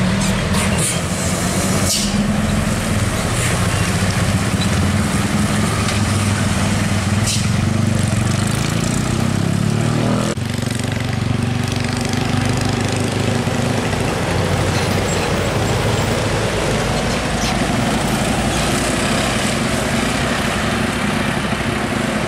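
Heavy diesel trucks running past on the road. First a Hino 500 six-wheel box truck, whose engine note climbs before a sudden cut about ten seconds in; then an Isuzu Giga truck's engine.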